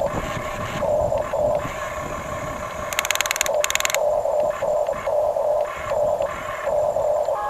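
Electronic engine sound effect from a radio-controlled toy construction machine: a buzzy tone pulsing about twice a second. Around the middle it is broken by two short, harsh buzzes from the toy's electric motor and gears.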